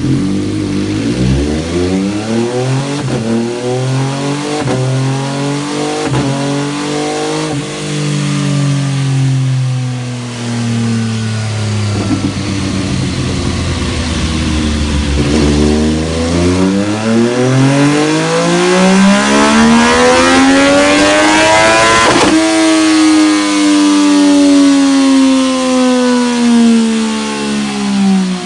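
F3 motorcycle engine running through a db-TECH slip-on muffler, its pitch changing with the revs. The engine note falls and holds low, then climbs steadily for several seconds. About 22 seconds in it drops suddenly, then eases down again.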